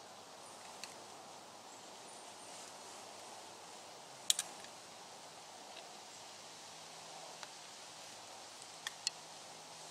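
Quiet autumn woodland background with a faint steady rustle, broken by a few short sharp clicks: the loudest, a quick double click, about four seconds in, and a close pair near the end.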